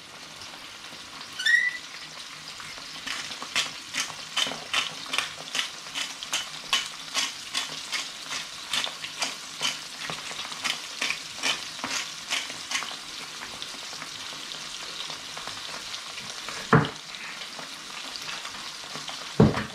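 Fish fillets sizzling steadily in a frying pan while a hand-twisted pepper grinder grinds black pepper over them in a quick run of clicks, roughly two or three a second, for about ten seconds. There is a short squeak near the start and two knocks near the end.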